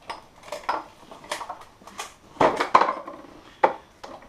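Clicks and knocks of handling: the rubber-sheathed power cord and plug of a Kränzle pressure washer being picked up, then the machine's plastic frame being shifted. The loudest knocks come about two and a half to three seconds in.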